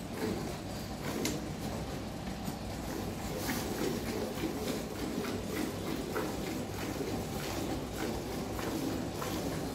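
Cow being milked by hand into a steel bucket: rhythmic squirts of milk hitting the pail, about two a second, over steady low background noise.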